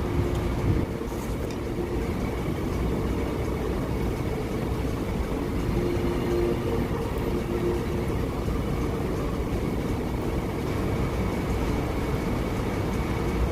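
Steady low rumbling background noise with a faint steady hum.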